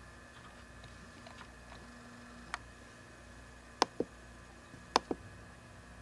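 A few sharp clicks over a faint steady hum: a single click about two and a half seconds in, then two quick double clicks about a second apart.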